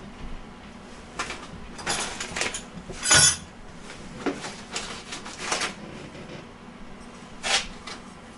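Small hard parts and tools being handled and set down during assembly: a series of irregular clicks and clatters, the loudest a sharp knock with a brief metallic ring about three seconds in.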